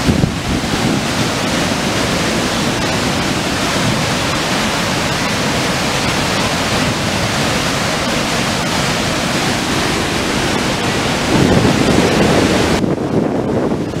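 Loud, steady rushing of the Pailón del Diablo waterfall on the Río Pastaza, with wind buffeting the microphone. About 13 seconds in the sound abruptly turns duller and deeper.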